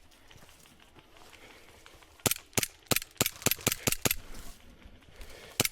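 Airsoft rifle firing a quick string of about eight sharp single shots over two seconds, then one more shot near the end.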